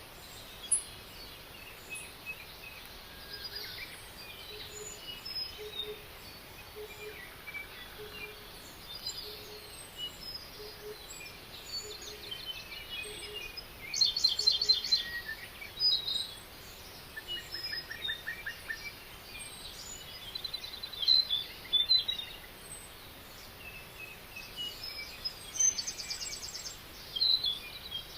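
Several wild birds singing and calling over a steady hiss, with fast trills about halfway through and again near the end. A low note repeats about twice a second through the first half.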